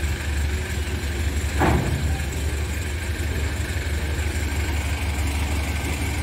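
A diesel engine idling steadily with a low hum. A brief knock about a second and a half in.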